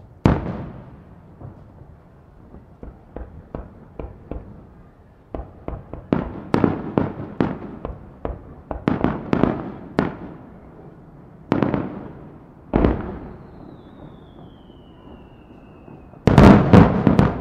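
Aerial firework shells bursting overhead: a sharp bang at the start, then quick strings of smaller reports, two single bangs about a second apart, and a rapid, loudest volley near the end.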